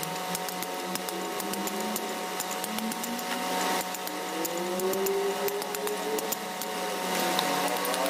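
Quick, light taps of a small hatchet chipping the edge of a flat piece of stone held in the hand, over a steady machine hum that wavers in pitch.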